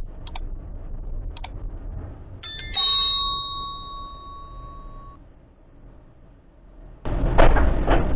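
Subscribe-overlay sound effects: two mouse clicks, then a click and a bell chime that rings out for about two seconds. About seven seconds in, a sudden louder rumbling noise with a couple of knocks starts.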